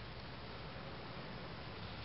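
Steady background noise: an even hiss with a low rumble underneath, and no distinct event.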